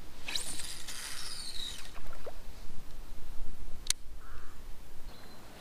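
A lure cast with a baitcasting rod: line whirs off the spool for about a second and a half, falling in pitch as the spool slows, then a single sharp click comes about four seconds in. Low wind rumble on the microphone runs underneath.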